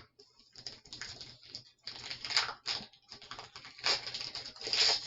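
Packaging being handled and opened: irregular crackling and rustling of plastic and foil wrappers, loudest in a few bursts in the second half.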